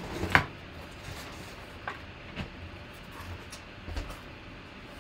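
Cardboard box being opened by hand: a knock and scrape about half a second in as the lid comes off, then a few light taps and rustles.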